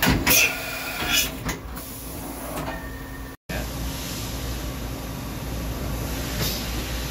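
2008 Matsuura H-Plus horizontal machining center running with a steady hum. Several sharp metallic clunks come in the first three seconds. The sound drops out briefly about three and a half seconds in, then the steady hum goes on with a faint hiss.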